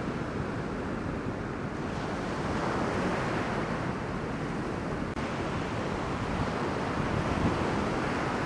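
Ocean surf from a hurricane swell breaking on the shore, mixed with steady wind noise from the stiff offshore wind buffeting the microphone.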